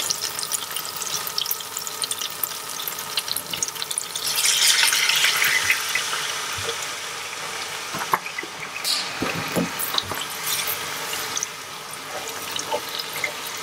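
Water poured from a plastic bottle into a pot of hot olive oil and toasting tomato paste, hissing and sizzling with scattered crackles. The hiss swells loudest from about four to six seconds in, then settles to a softer crackling.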